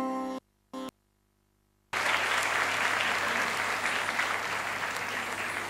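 The music's last held note breaks off, then after a short silence an audience breaks into steady applause about two seconds in, which slowly fades.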